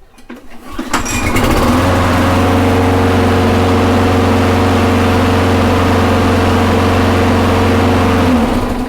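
Briggs and Stratton lawn mower engine pull-started, catching about a second in and running steadily at an even speed, then shut off near the end. It runs without the clicking or clanking, with the recoil shroud now firmly seated on its correct-length screws.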